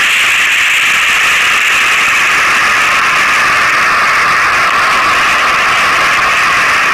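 A loud, steady hiss of noise with no pitch or rhythm.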